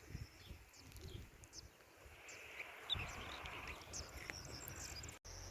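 Faint outdoor ambience of scattered short, high bird chirps over a low rumble of wind on the microphone. Just before the end, a steady high insect trill starts, likely crickets.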